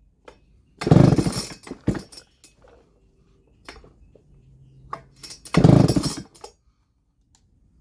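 Baumr-AG SX92 two-stroke chainsaw's recoil starter pulled twice, about four seconds apart, each pull cranking the engine over for about a second without it firing. The saw is not starting, and no spark shows on the inline spark tester. Small clicks of handling come between the pulls.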